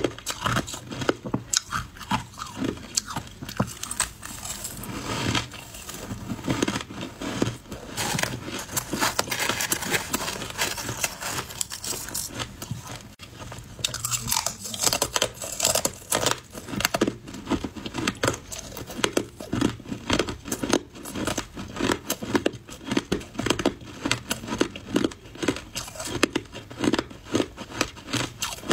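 Ice being bitten and chewed: shaved ice and hard frozen ice discs crunching and cracking between the teeth in quick, irregular crunches.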